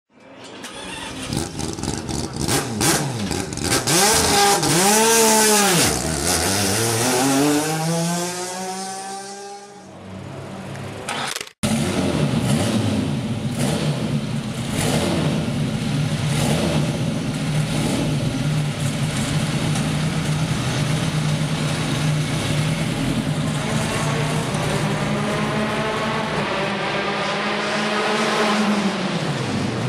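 Maserati Tipo 61 Birdcage's 2.9-litre straight-four racing engine revved several times, its pitch rising and falling. After a sudden cut about twelve seconds in, it idles steadily, with a brief rev near the end.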